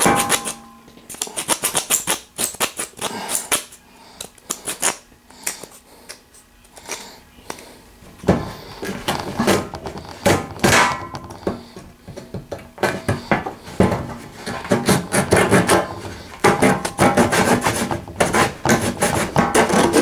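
Leatherman Blast multi-tool saw blade being pushed and pulled through a block of scrap wood in a long run of rasping strokes, louder from about eight seconds in. The blade is binding and dragging in the cut, which the sawyer says calls for WD-40.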